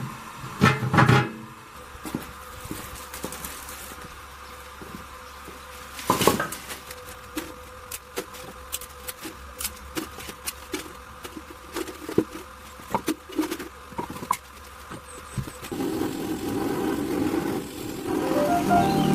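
A metal lid clanks down onto a steel smoker box. Then comes a run of sharp cracks and clatters as dry branches are broken and piled into a rusty steel barbecue grill. Near the end a butane canister gas torch starts hissing as it lights the wood.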